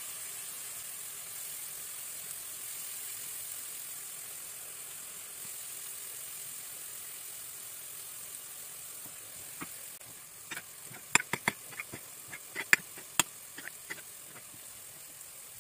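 Faint steady sizzle of mushrooms and onions frying in a pan. About two-thirds of the way through comes a quick run of sharp clicks as a knife cuts pickled tomatoes against a ceramic plate.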